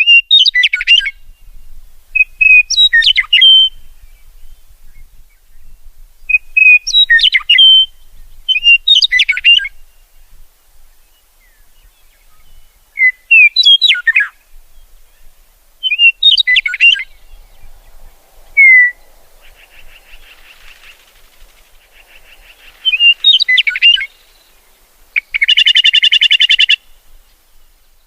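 A songbird singing short, quick phrases of chirps and whistles, repeated every two to three seconds. Near the end come a buzzy trill and then a harsh, buzzy call about a second and a half long.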